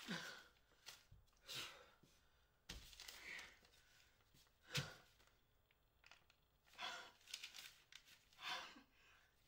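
A woman's faint breathing: a few sighs and gasping breaths a second or two apart, the sharpest about five seconds in.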